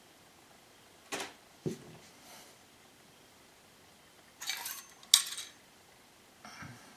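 Short metallic clinks and scrapes of airsoft sniper rifle internals being handled: the metal cylinder, a red aluminium part and the spring knocking and sliding against one another. There are a few light clicks in the first two seconds and a sharper run of clinks from about four and a half seconds in, the loudest just after five seconds.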